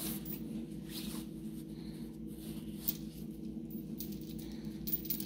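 Light clinks of steel chain links and rustling of nylon cord as chain weights are tied onto a cast net by hand, a few sharp clicks scattered through, over a steady low hum.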